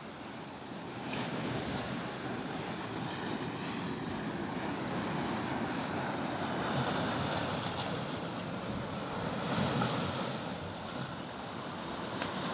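Sea waves washing against the rocks in a steady surf noise that swells a little a few times, with wind buffeting the microphone.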